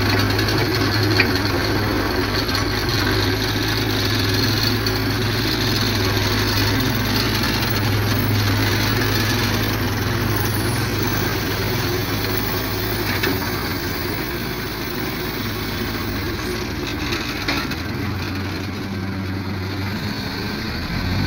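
Hyster forklift's engine running steadily with a low, even hum as it lifts and carries a pallet.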